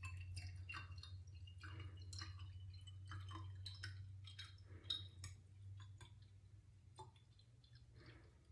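Distilled water poured in a thin stream from a plastic jug into a glass bottle: a faint trickle with small drips and clinks, its pitch rising slowly as the bottle fills for the first few seconds. A low steady hum runs underneath.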